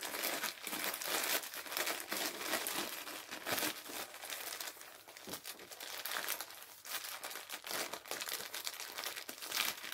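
Plastic mailing bag crinkling and rustling as hands pick and pull at it to open it, with many short irregular crackles.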